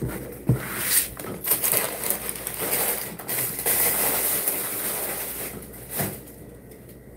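Rustling with a few sharp knocks and clatters, as things are handled and moved close to the phone's microphone.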